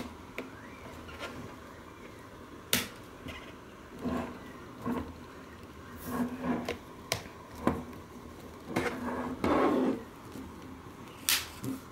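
Hard plastic clips of a Trident Cyclops rugged case being pressed and snapped onto a Surface Pro 3: irregular sharp clicks and knocks, with handling noise of hands on the case between them.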